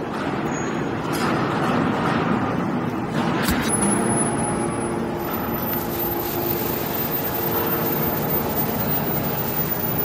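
Hydraulic scrap-can baler running with a steady mechanical drone while its ram pushes a compressed bale of crushed cans out of the chamber. A steady whine joins about three and a half seconds in, just after a sharp click.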